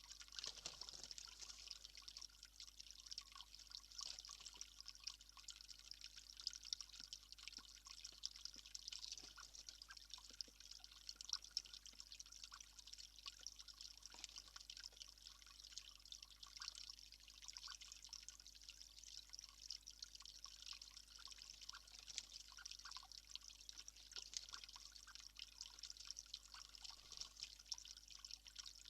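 Faint trickling and dripping water: a steady soft hiss dotted with small irregular ticks.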